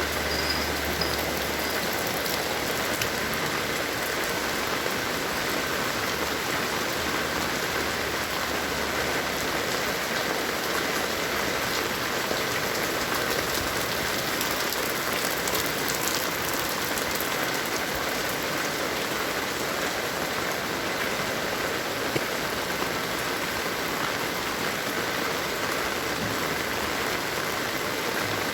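Heavy rain falling steadily, a dense, even hiss of drops hitting the ground and surfaces all around.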